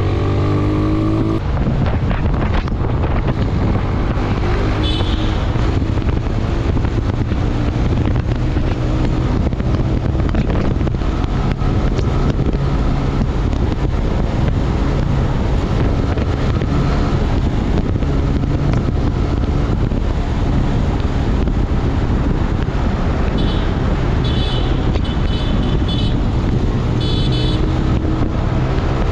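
Motorcycle engine running steadily on the move under a constant rush of road noise, with several short, high beeps about three-quarters of the way through.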